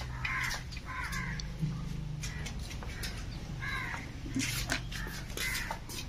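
A bird cawing in short calls, about four times, over a steady low hum, with a few sharp knocks.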